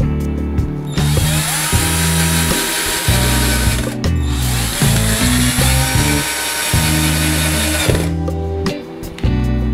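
Cordless drill-driver running in two runs of about three and four seconds, with a brief break about four seconds in, as it drives small screws through a brass nameplate into a hardwood end-grain cutting board. Its motor whine rises at the start of each run. Background music plays underneath.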